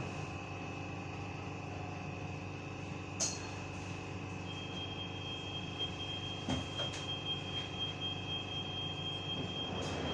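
Copenhagen Metro train standing at an underground platform: a steady hum from the carriage's on-board equipment, with a steady high tone, a second high tone joining about four and a half seconds in, and a couple of short clicks.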